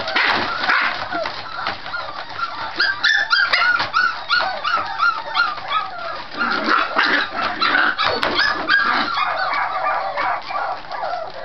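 Several Scottish Terrier puppies play-fighting, with a constant stream of high-pitched yips and barks, including a quick run of about three yips a second a few seconds in. It sounds like a fight, but it is the normal noisy play of Scottie puppies.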